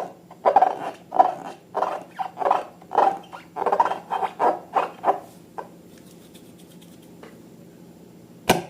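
Slime being squeezed and kneaded by hand, squelching in a quick run of short squishes about two a second, which stop after about five and a half seconds. A low hum remains, and a single sharp click comes near the end.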